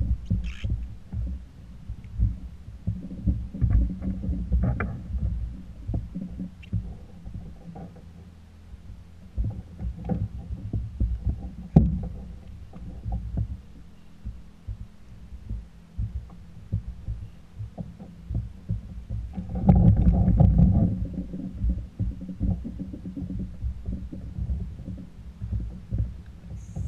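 Low, irregular bumping and knocking of water and gear against a plastic fishing kayak's hull as a fish is netted and landed. There is a sharp knock about twelve seconds in and a louder spell of bumping around twenty seconds in.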